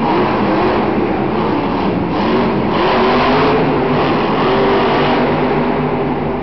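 Monster truck's supercharged V8 revving as it drives around the dirt arena floor, its pitch rising and falling a couple of times, with loud arena echo and crowd noise.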